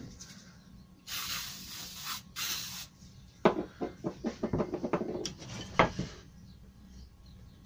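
Aerosol superglue activator sprayed in two short hisses, the first about a second long, the second shorter. Then a run of knocks and clicks as mitred wooden moulding pieces are set down and pressed together at the joint.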